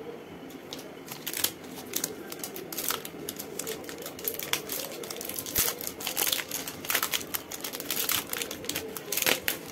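Chocolate bar's wrapper and inner foil crinkling and tearing as they are opened by hand, a dense run of irregular crackles.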